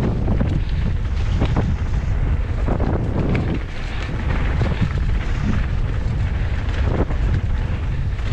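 Wind rumbling on a GoPro's microphone as a mountain bike rolls fast down a dirt singletrack, with scattered clicks and knocks from the bike over the trail.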